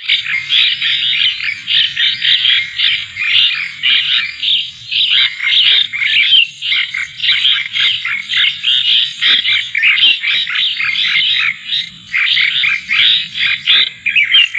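Plain prinia calling: a dense, continuous run of rapid, buzzy chirps, with brief lulls about five seconds in and again near twelve seconds.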